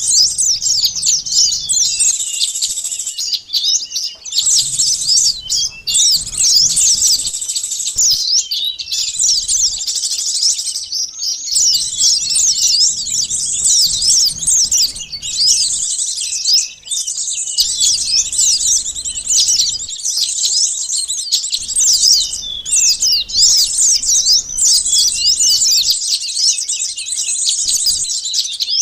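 Dense, rapid, high-pitched chirping of sunbirds and other small songbirds, many quick calls overlapping almost without a break, played as a bird-lure (pikat) recording.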